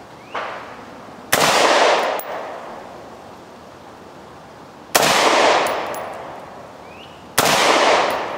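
Three single shots from a Colt AR-15 A2 rifle firing 5.56 NATO, about three and a half then two and a half seconds apart, each ringing out and fading over about a second.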